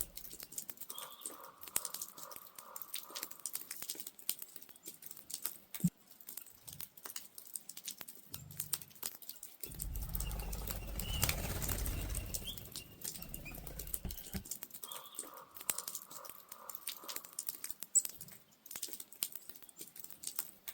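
Woodpecker pecking at a tree: irregular sharp taps throughout, with a low rumble for a few seconds in the middle.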